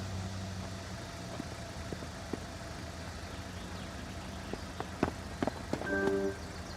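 Steady low hum of background ambience with a few faint clicks, and a brief chime-like musical note near the end.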